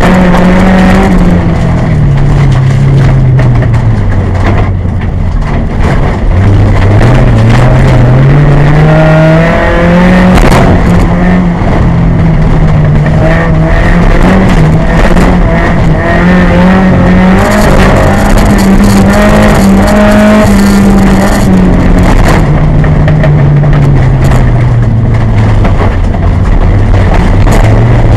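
A VW Golf Mk2 autocross car's engine heard from inside the cabin at race pace, very loud. The revs drop and climb again and again as the driver lifts off, changes gear and accelerates, with the pitch stepping at the gearchanges.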